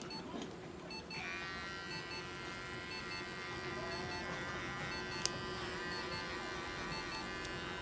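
Small electric pet clipper switched on about a second in and running steadily, trimming the hair on a cat's paw pads. A short, high electronic beep repeats about once a second.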